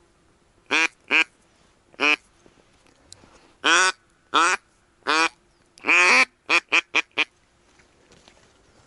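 Double Nasty 2 mallard duck call blown in hen quacks: three single quacks, then four longer quacks, the last drawn out, ending in four quick short quacks.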